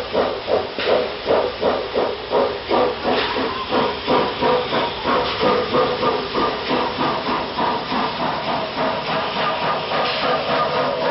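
FS class 741 Franco-Crosti 2-8-0 steam locomotive working a freight train, its exhaust chuffing at about two to three beats a second over a steady hiss of escaping steam. Toward the end the beats blur into a more continuous hiss.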